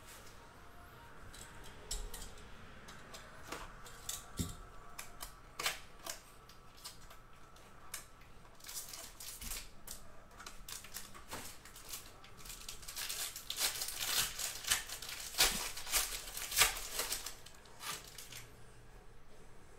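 Handling of a small cardboard trading-card box and the cards inside: the box flap opened and the stack of cards slid out and flicked through, heard as a run of small clicks, taps and rustles that come thickest a few seconds before the end.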